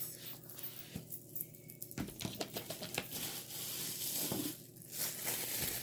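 Paper wrapping being pulled and crinkled off a glass spray bottle. The crackles come as a quick run of small clicks about two seconds in, then a denser rustle that lasts until near the end.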